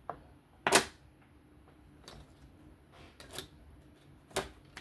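A handful of sharp clicks and taps from hard objects being handled, with one loud click about a second in and quieter ones spread through the rest.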